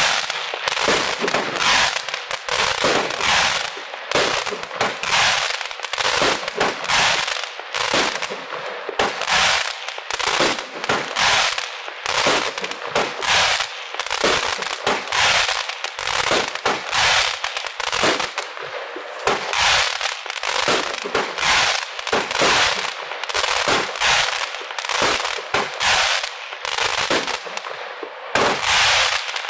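Weco Pyrock fireworks battery firing: a steady run of sharp shots and bursts, one or two a second, with a brief pause just before the last few shots.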